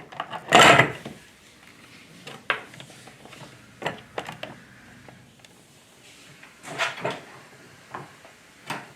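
Scattered knocks and clicks of hard plastic toy parts and metal washers being handled and fitted onto a ride-on carriage's wheel axle, the loudest a short rattling knock about half a second in.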